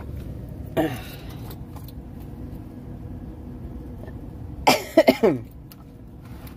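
Short wordless vocal sounds that fall in pitch: one about a second in, then a quick, louder cluster of three or four near five seconds in. A steady low rumble runs underneath.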